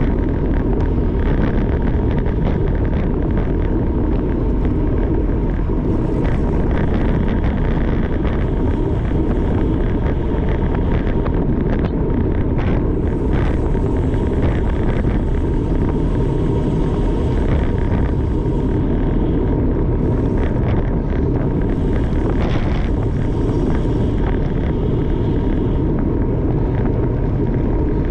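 Steady wind noise rushing over the camera microphone of a bicycle moving at race speed, heavy and low, with patches of higher hiss coming and going.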